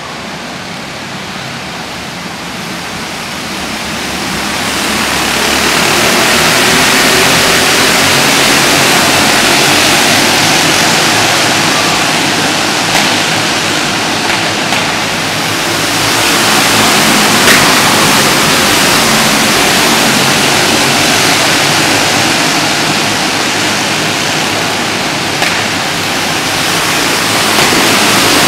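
A pack of racing karts running at race speed inside an enclosed arena, their engines blending into one dense, continuous noise. It grows louder over the first few seconds, then swells and fades as the field passes.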